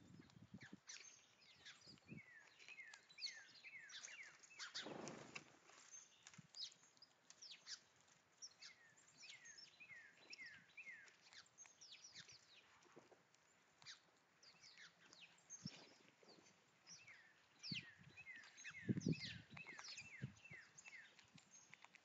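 Small songbirds calling, with quick runs of short downward-sliding high notes that come several times. Soft low thumps and rustles close to the microphone about five seconds in and again near the end, from a gray squirrel foraging in the scattered seed.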